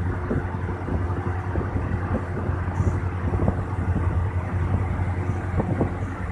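Steady low hum and rumbling background noise, with many small knocks and clicks scattered through it.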